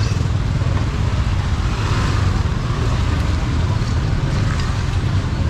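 Motorbike engine running steadily at riding speed, a low rumble with wind buffeting the microphone.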